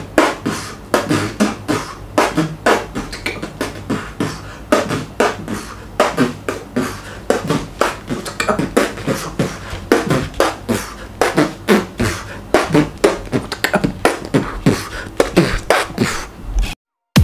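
A man beatboxing: a fast run of mouth-made drum hits, about four a second, mixed with short voiced sounds. It cuts off suddenly near the end.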